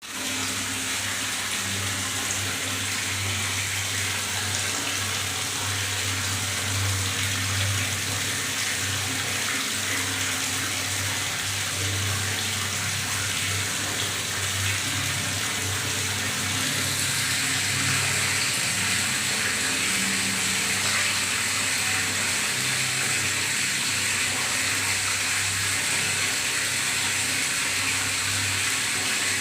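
Water running and gurgling in a bathtub: a steady rush with an uneven low gurgle under it. The hiss grows a little brighter and louder a bit past halfway.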